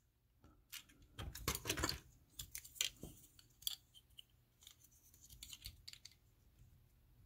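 Plastic parts of a Transformers Ultra Magnus action figure clicking and rattling as they are handled and pulled apart. A quick cluster of clicks comes about one to two seconds in, then scattered single clicks follow.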